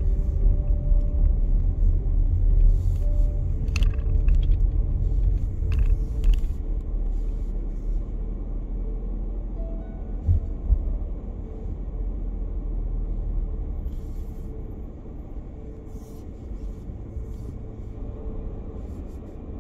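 Car driving, heard from inside the cabin: a steady low rumble of engine and tyres that eases off in the second half, with a few scattered clicks and knocks.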